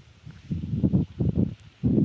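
Wind buffeting the microphone in irregular low gusts, strongest in the second half.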